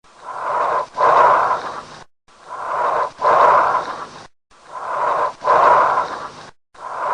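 A person's breathing, recorded as a breath-sound sample: about three breaths, one roughly every two seconds. Each breath has two noisy phases with a brief break between them, the second louder than the first, then a short silence.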